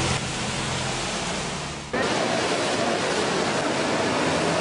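Steady rushing noise of heavy rain and fast-flowing floodwater, with a low hum under it at first. About two seconds in it cuts abruptly to a slightly louder rush of the same kind.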